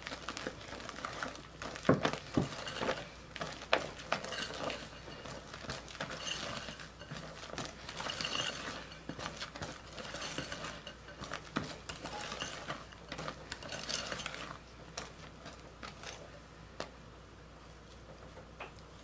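Wire whisk folding meringue into thick chocolate batter in a glass bowl: the wires clink and scrape against the glass in many light knocks. It gets quieter for the last few seconds.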